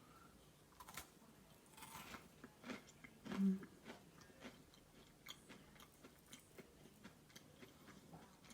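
Cornstarch cookie being bitten and chewed close to the microphone: small crisp crunches and mouth clicks, with one short low hum from the eater about three and a half seconds in.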